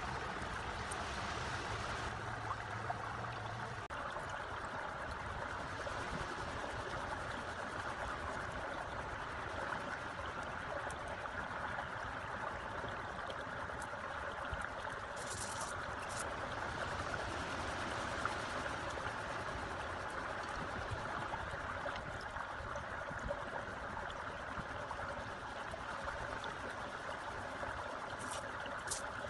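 Steady rushing noise like running water, with a few faint light clicks about halfway through and near the end as bamboo slats are handled.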